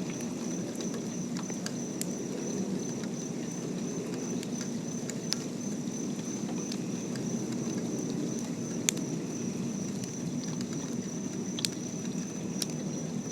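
Rain ambience: a steady patter with scattered sharp drips and ticks, under a thin, steady high-pitched tone.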